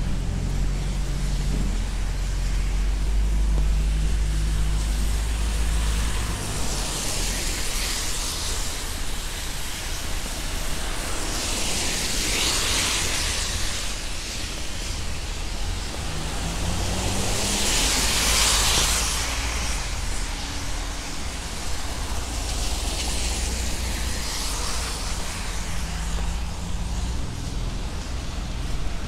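Street traffic on wet pavement: cars pass one after another, their tyres making four swells of hiss, the loudest about two-thirds of the way through. A low engine rumble at the start stops about six seconds in.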